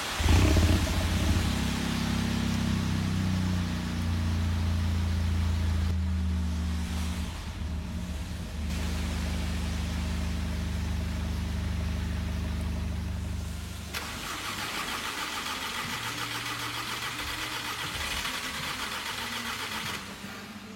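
An engine starts abruptly and runs steadily with a low hum. About two-thirds of the way through, its sound changes to a fainter running with a rapid higher flutter.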